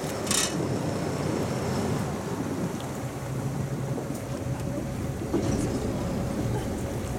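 Motorboat under way: a steady low engine rumble with a rushing hiss over it, and two brief louder hissing surges, one about half a second in and one near the end.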